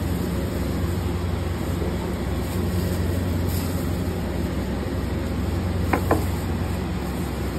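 Steady low mechanical hum of commercial kitchen equipment, with two sharp clicks close together about six seconds in.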